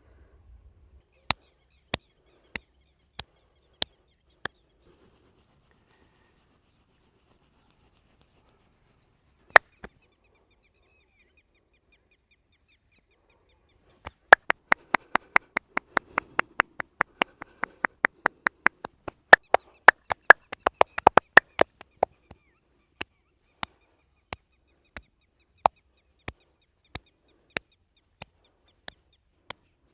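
Massage hands slapping in percussive tapping strokes, sharp claps with no ringing. A few single strikes at an even slow pace, then a fast run of about four or five a second for some eight seconds, then single strikes again about every half second.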